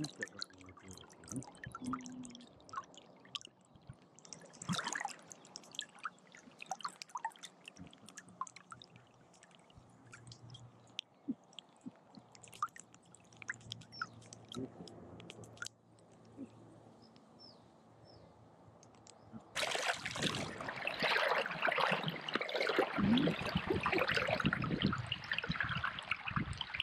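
Water dripping and trickling in small scattered splashes, as off a kayak paddle. About twenty seconds in, a louder, steady rush of pouring, splashing water takes over.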